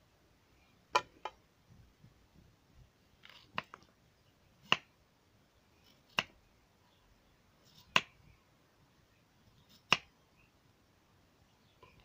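Kitchen knife slicing a zucchini on a wooden cutting board: a sharp knock each time the blade goes through and meets the board, about seven knocks spaced a second or two apart.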